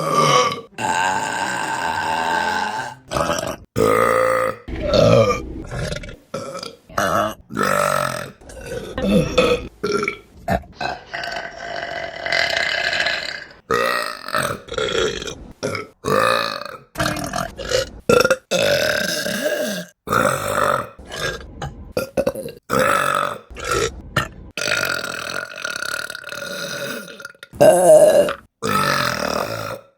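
A string of burps by different women, cut one after another. Some are short and some are long and drawn out over two or three seconds, with abrupt breaks between them.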